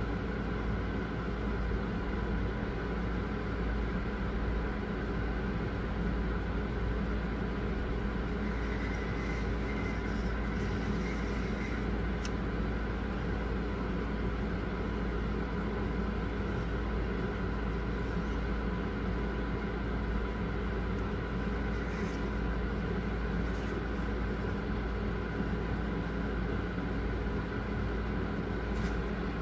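Steady mechanical hum and hiss, with a few faint clicks.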